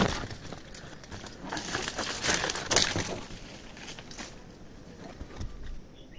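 Leaves and twigs rustling and crackling as a hand grabs and pushes through tree branches, in a few short bursts in the first half, quieter after.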